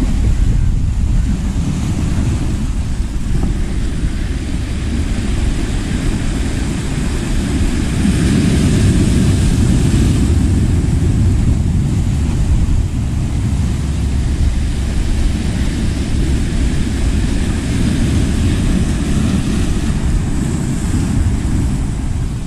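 Wind buffeting the microphone in a steady low rumble, over the hiss of surf breaking against rocks.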